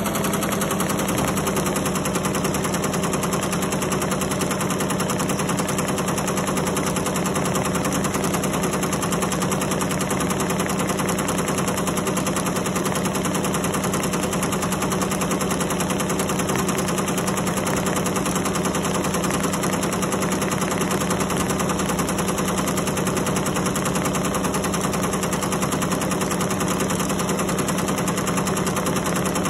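Tajima commercial embroidery machine stitching at speed: a steady, fast mechanical clatter of the needle bar with a constant running hum.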